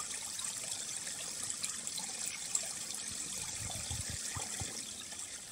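Steady trickling of water, an even hiss with faint fine ticks, and a few soft low bumps about four seconds in.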